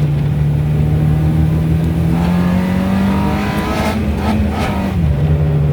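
Car engine running under way, its note climbing gradually for a couple of seconds, then dropping back abruptly near the end, over steady road noise.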